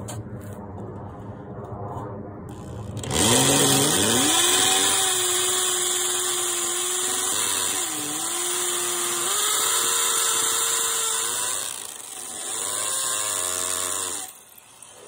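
Power drill with a quarter-inch bit boring an anchor hole into a concrete patio. The motor spins up about three seconds in and runs with its pitch dipping and rising as it bites, stops near twelve seconds, then runs again for about two seconds.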